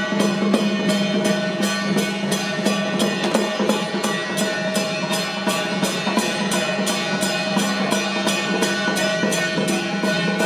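Temple procession music: drums and cymbals beat a fast, steady rhythm of about three strikes a second under held melodic tones.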